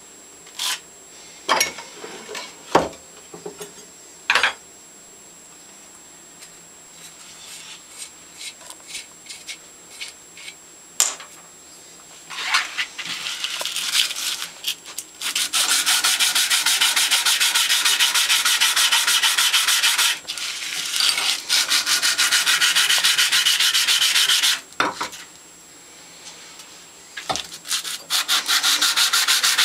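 Scattered clicks and clinks of small steel plane parts being handled, then fast back-and-forth rasping as a small part of a Stanley No. 113 compass plane is rubbed flat on abrasive paper. The rasping comes in three long runs with short pauses, the lapping stage of the tune-up.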